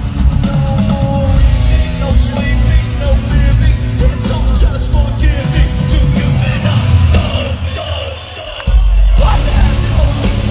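Nu-metal band playing live through a concert PA: distorted guitars and drums under the singer's shouted and sung vocals. About eight seconds in the band thins out briefly, then slams back in loud with heavy low end.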